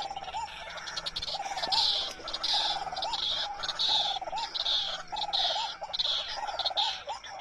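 White-breasted waterhen (ruak-ruak) calling over and over in a steady rhythm, one call about every 0.8 seconds, each pairing a lower hooked note with a harsh rasping part.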